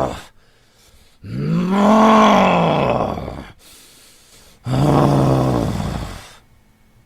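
A very angry man's drawn-out grunts: the tail end of one, then two long growling groans, the first rising then falling in pitch, the second lower and sinking.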